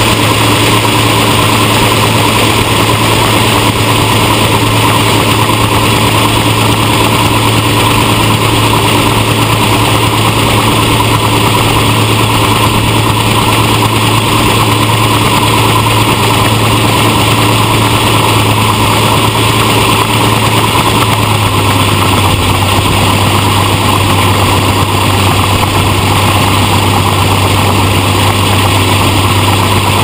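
Cat MT765C track tractor's engine running steadily under load while it drives the Kinze 1050 grain cart's unloading auger, with shelled corn pouring into a semi trailer. The engine note drops slightly a little over two-thirds of the way through.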